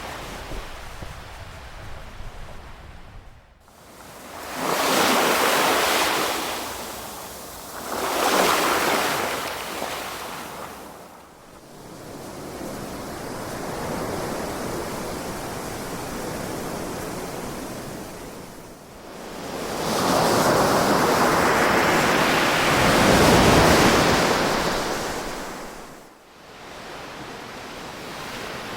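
Ocean waves breaking and washing back, rising and falling in turn. Louder breakers come about five and eight seconds in, and a long, loud one builds about two-thirds of the way through, with a softer wash between.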